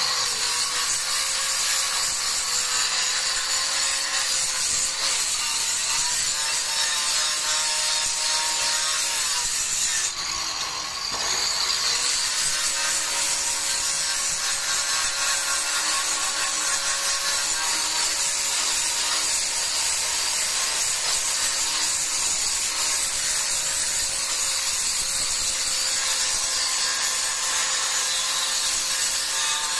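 Electric grinder running continuously on marble stair treads, the abrasive scraping the stone over a steady motor whine. About ten seconds in, the sound drops briefly and the whine sags, then picks back up.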